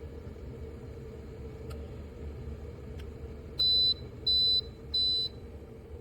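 COMFEE 1.7L electric kettle beeping three times, short high beeps evenly spaced, signalling that the water has reached the set temperature. A steady low rumble of water at the boil runs underneath.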